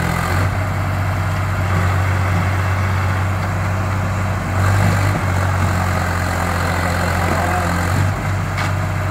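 Swaraj 855 FE tractor's diesel engine running steadily under load while hitched to a heavily loaded trolley stuck in mud, its note rising briefly about four and a half seconds in.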